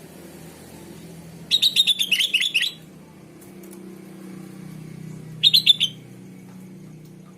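Sooty-headed bulbul (kutilang) giving two bursts of rapid chattering calls: a longer run of about a dozen quick notes about a second and a half in, and a short burst later. A steady low hum runs underneath.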